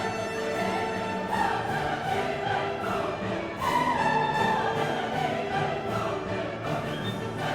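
Background music: orchestral piece with choir and a soaring vocal line over strings.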